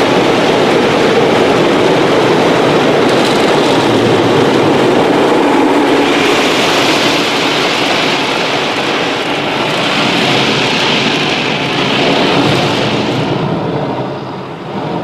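Rotating brushes of a Christ Varius automatic car wash scrubbing the car's windows and body under running water, heard from inside the car: a loud, steady wash of noise. A brighter hiss comes in for several seconds around the middle, and it eases off slightly near the end.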